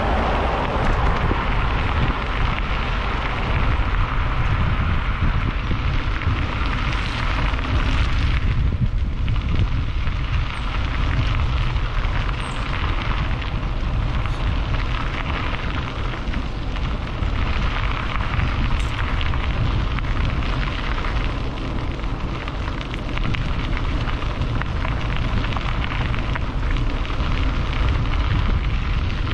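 Wind buffeting the microphone: a steady rushing noise with a heavy rumble.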